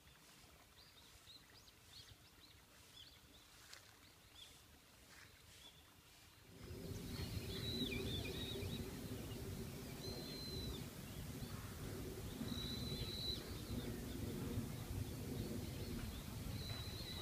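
Outdoor park ambience with small birds calling: faint high chirps at first, then, about six seconds in, a steady low rumble sets in, with short, level high-pitched bird whistles repeating every few seconds.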